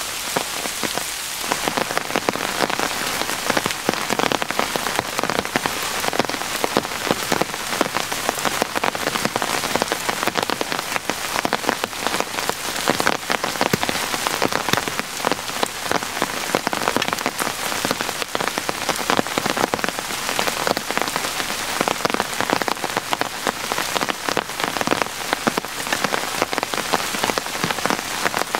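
Heavy rain falling steadily, a dense hiss made up of countless close drops landing.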